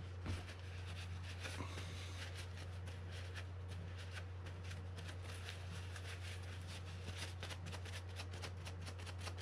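Paper towel rubbing and rustling over small metal reel-handle parts, with many small handling clicks, over a steady low hum.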